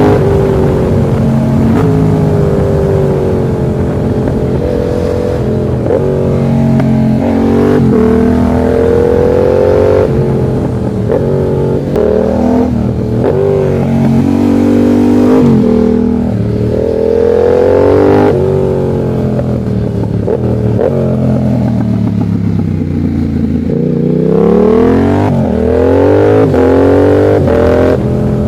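Yamaha MT-07's 689 cc parallel-twin engine under way, its revs repeatedly climbing and falling as the throttle is opened and closed and gears are changed through the curves.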